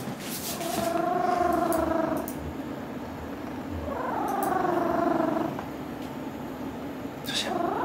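Domestic cat purring loudly while being stroked on a lap, a sign of contentment. The purr swells twice, each swell lasting about a second and a half, with a quieter gap between them.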